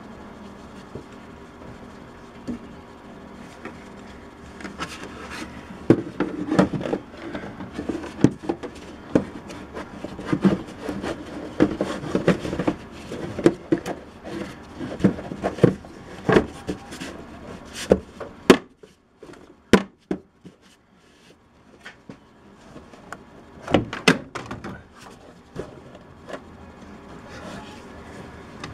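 Plastic engine cover being fitted over the engine by hand: scattered knocks, clicks and rubbing of plastic as it is worked into place, with a few sharp single clicks about two-thirds of the way through.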